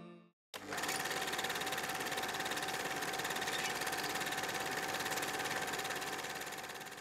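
Film projector sound effect: a steady, fast mechanical rattle with a steady tone running through it. It starts about half a second in, after guitar music fades out, and cuts off suddenly at the end.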